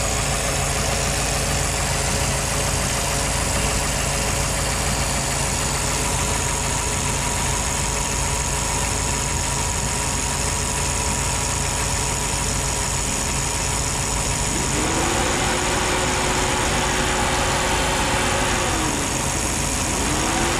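A 1956 Ford Thunderbird's Y-block V8 idling steadily at normal running temperature. About three-quarters of the way through, a Flex-A-Lite Flex-Wave electric cooling fan kicks on with a rising whine as its thermostat control knob is turned up to the switch-on point, runs steadily, winds down briefly and spins up again near the end.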